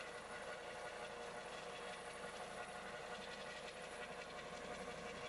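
Airbus EC155 twin-turbine helicopter hovering: a steady rotor and turbine noise with a constant whine that holds level throughout.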